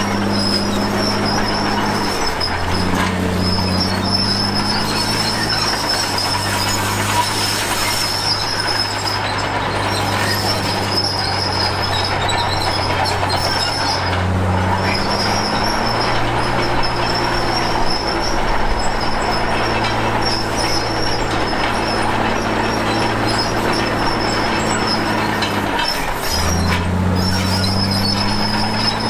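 Komatsu D53P crawler bulldozer working: its diesel engine runs under load with a steady high metallic squeal from the steel tracks. The engine note drops and climbs back three times, about two, fourteen and twenty-six seconds in, as the dozer shifts and changes direction.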